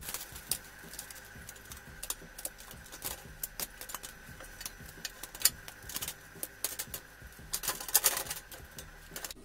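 A metal spoon clicks and scrapes on a wire oven rack, and pieces of fried fish drop into a stainless steel bowl, giving irregular light metallic clinks and taps, with a cluster of louder ones near the end. A faint steady high whine runs underneath.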